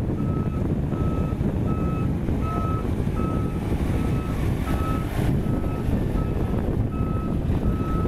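Self-loader truck's reversing alarm beeping steadily, about one beep every three-quarters of a second, over the rumble of its diesel engine as it manoeuvres.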